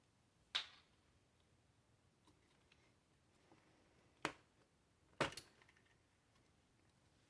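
Three sharp clicks of hard plastic parts being handled while a Nerf N-Strike Tech Target toy is taken apart: one about half a second in, then two close together around four and five seconds in.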